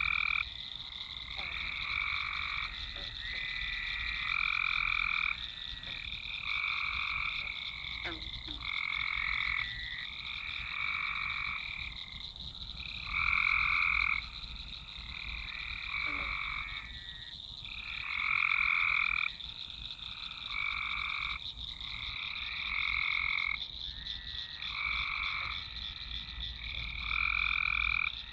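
Chorus of frogs calling, with bursts of calls swelling and fading about every second and a half and overlapping one another, over a steady high-pitched drone.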